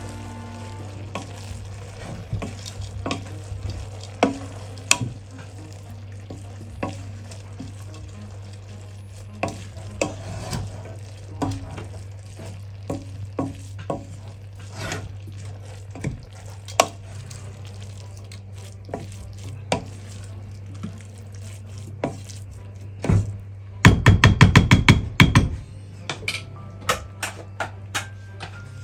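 A spoon stirring chopped mallow leaves cooking in a stainless steel pot, with a light sizzle and scattered taps and scrapes against the pot over a steady low hum. About 24 seconds in comes a quick flurry of rapid clatter lasting a second or two.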